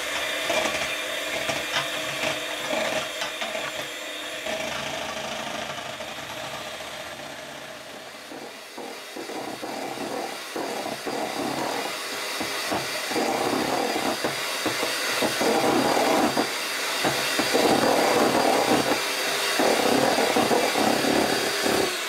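Electric hand mixer running steadily, its beaters whipping heavy cream in a stainless steel bowl. The churning grows louder from about halfway through as the cream stiffens into whipped peaks.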